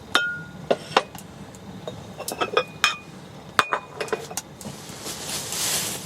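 Camp cookware or gear being handled: a series of sharp clinks and knocks, some ringing briefly like metal or glass. Near the end comes a swelling hiss of noise.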